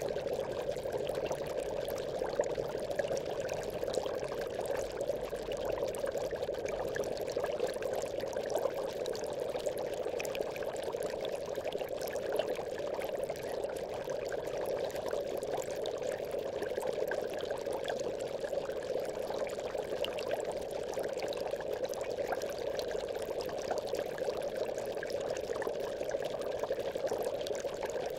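Aquarium bubbles: a steady, dense stream of bubbling water made up of many small pops.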